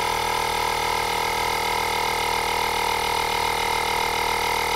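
Maypole 12 V handheld tyre compressor running with a steady, even drone as it pumps air into a caravan tyre, topping up a tyre already just under 4.5 bar. It stops abruptly right at the end.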